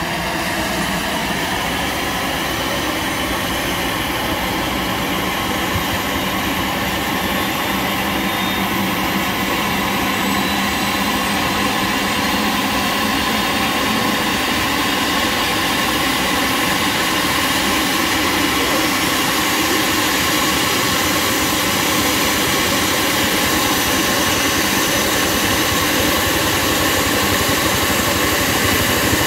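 DRF air-rescue helicopter's turbine engines running on the ground with the main rotor turning: a steady turbine whine and rotor noise. A high whine slowly rises in pitch and the sound grows slightly louder as it spools up for take-off.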